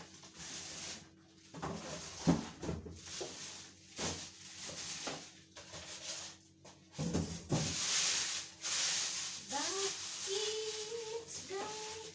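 Cardboard and plastic packaging being handled as an electric pressure cooker is unboxed: irregular knocks and bumps, with a stretch of rustling about two thirds through. Near the end come a few short rising pitched sounds, like a voice or an animal's call.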